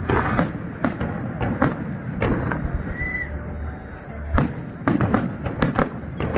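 Fireworks display: aerial shells bursting overhead, about a dozen sharp bangs at uneven intervals, with a short lull around the middle.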